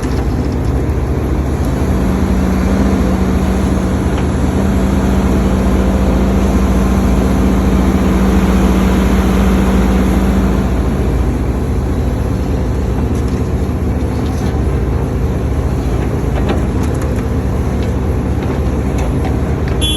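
HIDROMEK HMK230LC hydraulic excavator's diesel engine running under working load with its hydraulics, a steady drone; a held tone grows stronger from about two seconds in and fades back at about eleven seconds.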